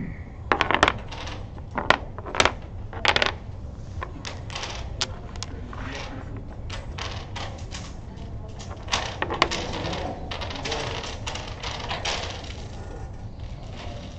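Dominoes clacking on a wooden table as tiles are played and picked up: a few loud clacks in the first three seconds, then a long run of lighter clicks.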